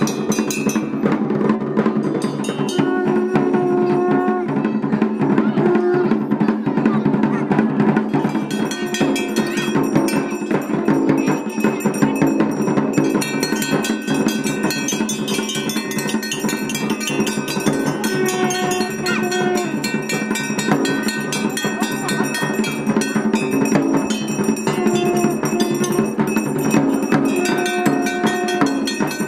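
Temple bells ringing rapidly and continuously over dense percussion during a puja.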